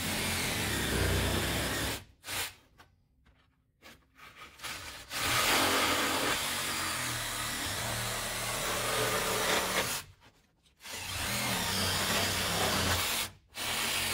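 DeWalt cordless reciprocating saw with a 12-inch metal blade running under roof shingles, sawing through the roofing nails beneath them. It cuts in stretches, with a pause of a few seconds about two seconds in and two short breaks later on.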